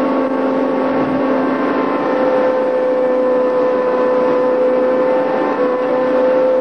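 Tug's engine running steadily under way, a constant droning hum with one strong steady tone and its overtones, heard on board.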